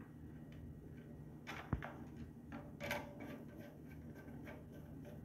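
Faint clicks and taps of a screwdriver and wire ends on the terminal screws of an electric water heater's thermostat as the supply wires are connected, with a few sharper clicks near the middle, over a low steady hum.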